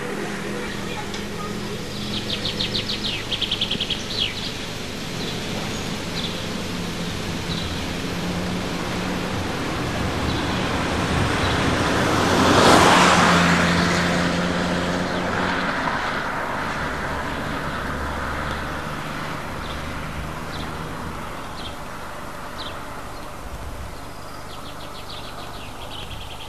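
A car passes by, its tyre and engine noise swelling to a peak about halfway through and then fading away over a steady background of road and engine hum. Birds chirp in quick trills near the start and again near the end.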